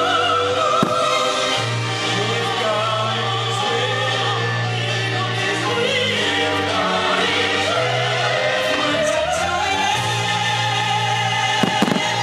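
Choral, operatic-style music with singing voices over sustained low notes. A few sharp firework bangs cut through it, one about a second in and a small cluster near the end.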